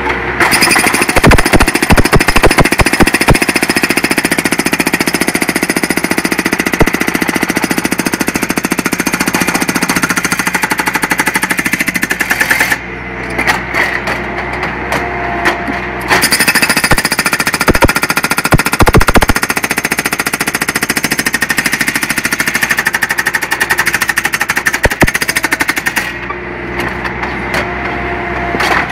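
Skid-steer-mounted hydraulic breaker hammering in rapid, continuous blows. It stops twice for a few seconds, leaving only the machine running, and then starts hammering again.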